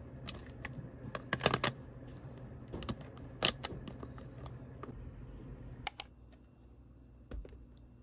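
Hard plastic clicks and clacks of pens and a mechanical pencil being set into a clear plastic pen case, with a quick cluster about a second and a half in and a sharp double click near six seconds. Near the end comes one soft thud of a cardboard box being set down on a stovetop.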